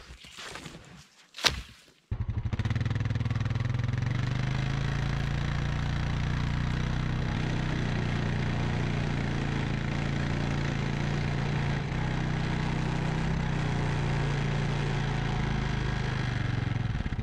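A brief rustle and one sharp knock, then, starting abruptly about two seconds in, a Honda Rancher ATV engine running steadily at an even pace while it tows a log through snow on a strap.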